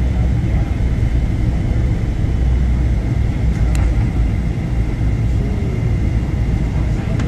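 Airliner cabin noise on descent: a steady low rumble of the jet engines and airflow, with a faint high steady whine. A single brief tick sounds near the middle.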